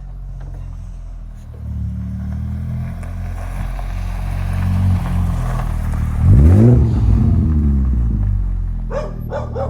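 Car engine running steadily and growing louder, with one quick rev up and back down about six and a half seconds in.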